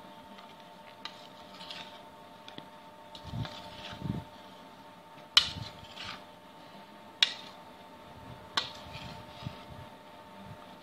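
Metal spoon stirring gram-flour-coated okra slices in a bowl: soft rubbing and scraping, with a few sharp clinks of the spoon against the bowl, the loudest about five, seven and eight and a half seconds in. A faint steady hum runs underneath.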